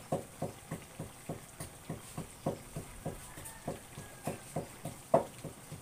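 An even run of light knocks, about three a second, with one louder knock near the end.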